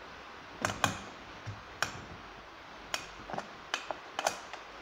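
About seven sharp, irregular clicks and knocks of hard plastic and metal parts as a Husqvarna 365 chainsaw body is handled and its parts are worked by hand.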